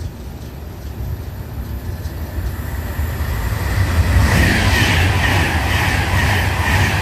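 A train approaching on the main line and running through the station without stopping, the rumble of its wheels on the rails growing louder over the first four seconds and then staying loud as it passes.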